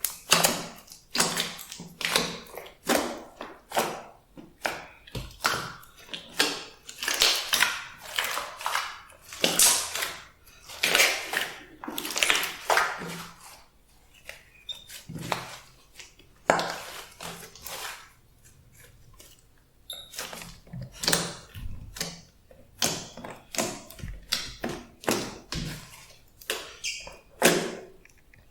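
Slime being kneaded and squished by hand, a run of wet pops and crackles about one to two a second, with a couple of brief pauses.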